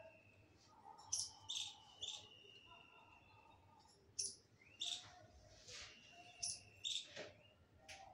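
A series of short, high-pitched chirps, about a dozen over eight seconds, some trailing into a thin, held whistle-like note.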